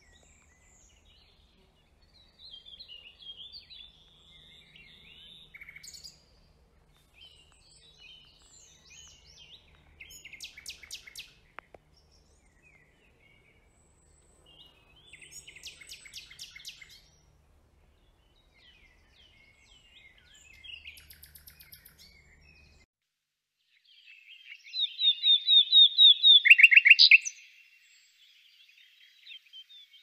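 Common nightingale singing: short, varied phrases separated by pauses of a second or two. The loudest phrase, near the end, is a fast run of repeated notes.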